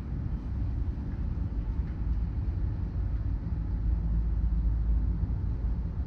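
Low, steady rumble of vehicle engines, growing a little louder about two seconds in and easing near the end.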